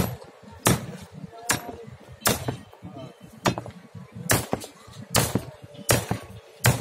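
Hand hammer striking on old wooden planks, a steady series of sharp blows a little more than one a second.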